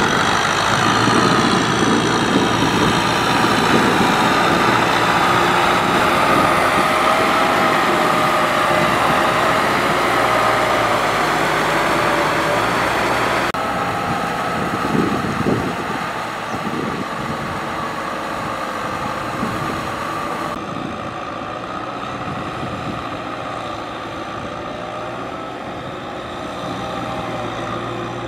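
Farm tractor's diesel engine running steadily while working a rotary tiller through wet paddy mud, its pitch wavering slightly. The sound changes abruptly about halfway through and again about three-quarters of the way in.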